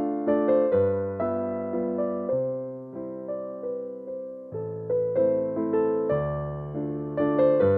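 Background electric piano music: a gentle melody of struck notes, about two a second, each fading away.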